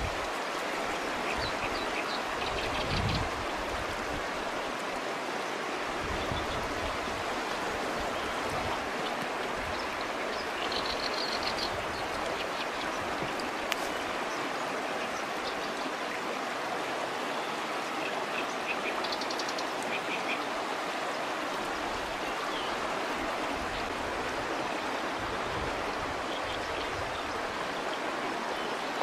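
Fast river current rushing steadily, with a few faint high chirps now and then and a single sharp click about halfway through.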